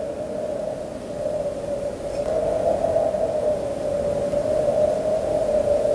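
A steady, noisy drone held at one mid pitch, wavering slightly and slowly growing louder.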